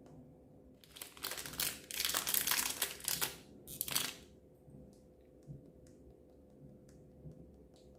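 Crinkling and rustling in a burst of about two seconds, then a shorter one, followed by faint scattered clicks.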